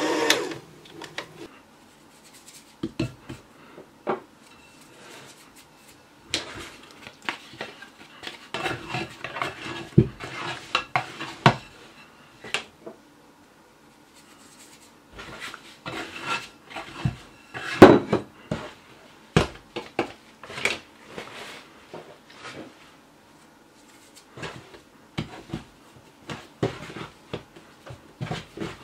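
An electric hand mixer cuts off just after the start. Then a long, irregular run of clinks, taps and scrapes of hands and dough against a glass mixing bowl, with quiet gaps and the sharpest knock about two-thirds of the way through, as the dough is worked and turned out of the bowl.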